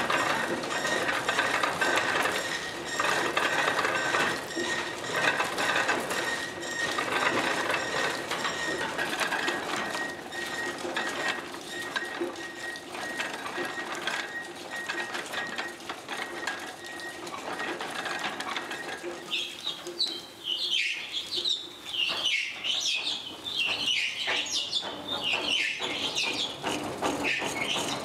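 Horizontal frame saw running: a fast, even clatter from its reciprocating mechanism, with a steady hum under it. About twenty seconds in, a wavering high squeal rises over the clatter.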